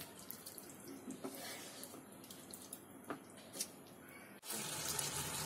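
Wooden spatula stirring a thin soy-based sauce through onion and bell peppers in a non-stick wok on high heat: faint wet sloshing and bubbling with light scrapes and clicks. Near the end it gives way abruptly to a louder, steady hiss of the thickened sauce cooking.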